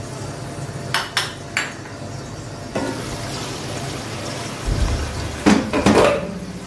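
Metal kitchenware being handled on a gas hob: a few light clinks, a knock, then a louder cluster of clatters near the end as a pan lid is taken off and pots are handled, over a steady low hum.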